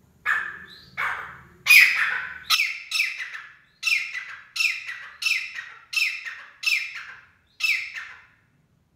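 Gray francolin calling: a run of about eleven loud, harsh notes, each starting high and falling away, repeated about one and a half times a second.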